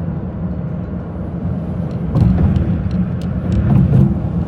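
Steady road and engine rumble heard from inside a moving car on the highway. It swells briefly about two seconds in and again near the end.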